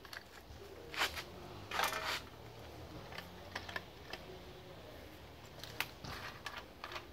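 Light metallic clicks and clinks as an angle grinder's cutting disc and its flange are handled. Two louder clatters come about one and two seconds in, then sparse faint clicks.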